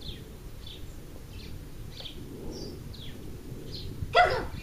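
A small bird chirping over and over, short high calls roughly every half second, over steady outdoor background noise. About four seconds in comes one short, loud call from a voice.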